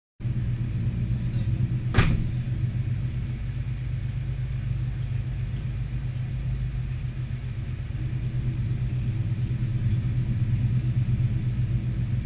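Steady low machinery hum on board a ship, with a single sharp knock about two seconds in.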